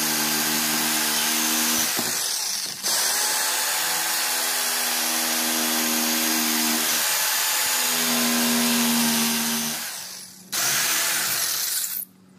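Vertigo VG-JS-70 electric jigsaw running and sawing through a wooden support piece, its motor whine shifting in pitch as the load changes. It stops briefly about ten seconds in, runs again, and cuts off near the end.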